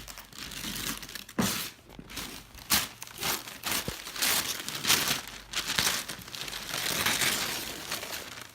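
Gift wrapping paper crinkling and tearing in a run of irregular rustles and rips as a present is unwrapped by hand.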